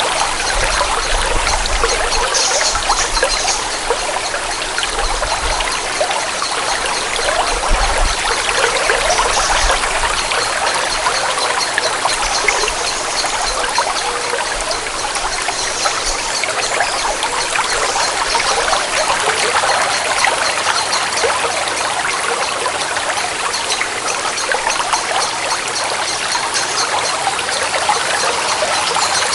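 Forest stream trickling steadily, an even splashing rush of water with no pauses.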